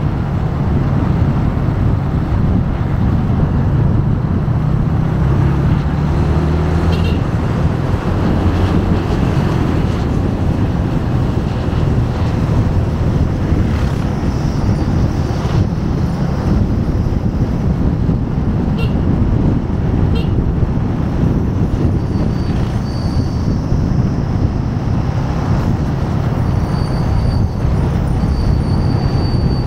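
Motorcycle engine running steadily at road speed, with wind and tyre noise on a rider-mounted binaural microphone.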